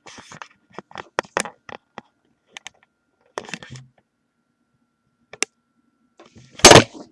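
Scattered short clicks and taps with quiet gaps between them, then a loud noisy burst about two-thirds of a second before the end.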